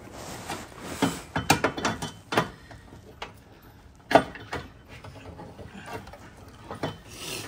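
Hand tools clicking and clanking on the car's sheet metal as a nut is worked into place: clusters of sharp ratchet-like clicks, with one loud clank about four seconds in.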